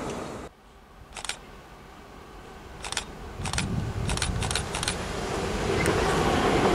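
Train sound cuts off about half a second in, leaving low background with a few sharp clicks. From about halfway through, the rumble of an approaching ICE high-speed train rises and grows steadily louder.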